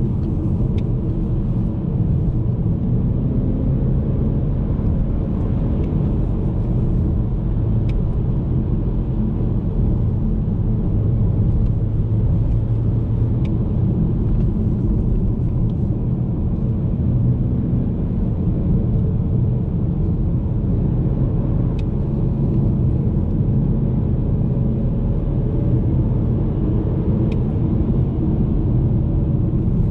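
In-cabin sound of a BMW E90 320i under way: its 2.0-litre N46 four-cylinder running at a steady, even pace under road and tyre rumble. A few faint ticks come through now and then.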